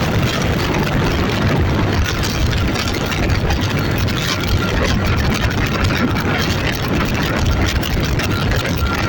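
A vehicle engine running steadily and loudly, with a dense low rumble and no change in pace.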